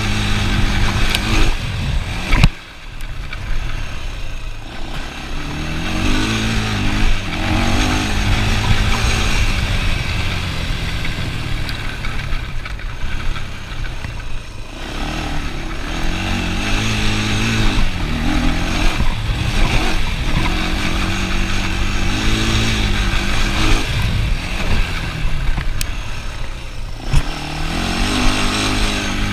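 ATV engine running while riding, revving up and down again and again as the throttle is opened and eased off. A sharp knock comes about two and a half seconds in.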